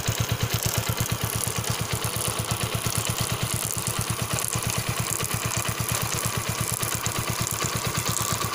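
Honda Splendor motorcycle's single-cylinder four-stroke engine idling in gear, with an even, rapid pulsing beat, while the drive chain runs over the sprockets.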